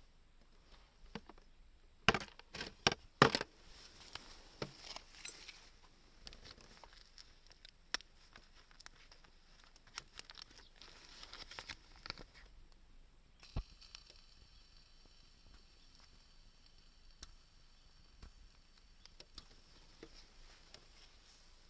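Scattered light clicks and knocks, with a cluster of louder sharp knocks about two to three seconds in and sparser ticks after.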